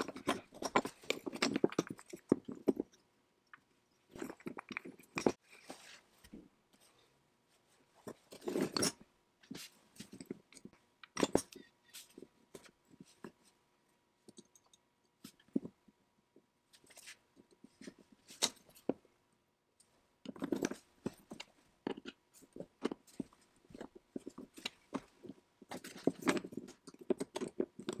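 Hands working on a small antique hand tool at the bench: bursts of rubbing and scraping broken by sharp clicks and light knocks of metal and wood parts, with short pauses between.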